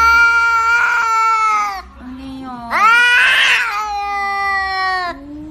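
A cat caterwauling: two long, drawn-out yowls that rise at the start and sag at the end, each with a raspy edge in the middle, and a short lower cry between them.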